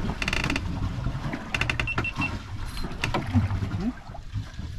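Fishing reel clicking in two short runs of rapid, even clicks while a hooked fish is played, over a low rumble from the boat on the water.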